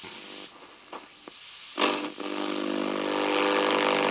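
Static hiss with a steady buzzing tone from the small speaker of a kit-built FM receiver, heard off-station as its knob is turned. It comes in about two seconds in and grows louder, after a few faint clicks.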